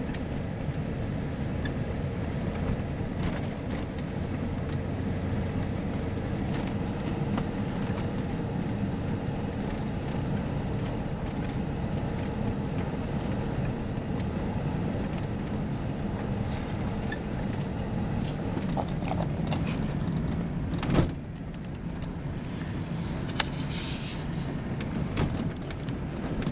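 Chevy running down the road, heard from inside the cab: steady engine and tyre noise. A single sharp thump comes about 21 s in, and the cab is a little quieter after it.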